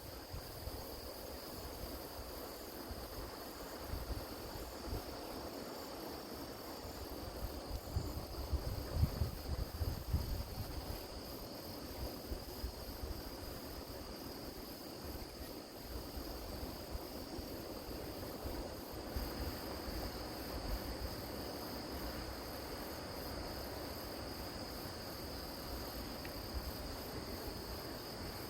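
Grass insects such as crickets trilling steadily in a high, even chorus. A low rumble of wind or surf underneath swells for several seconds early on.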